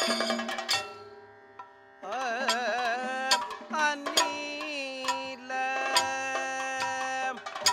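Kathakali music: a flurry of drum and cymbal strokes dies away in the first second. About two seconds in, a singer takes up a slow vocal line with wavering ornaments, kept in time by sharp metallic strikes of the small gong and cymbals.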